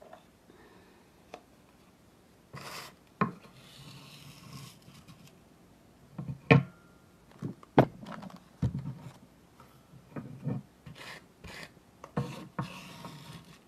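Salt and charcoal being mixed by hand in a bowl: irregular gritty scraping strokes, with a few sharp knocks against the bowl.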